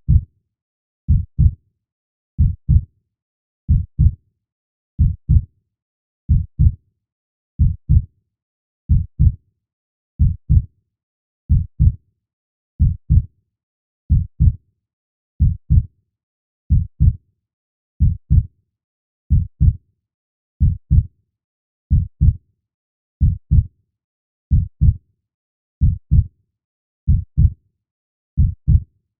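Heartbeat sound: steady, slow paired low thumps (lub-dub), about 45 beats a minute, with silence between the beats.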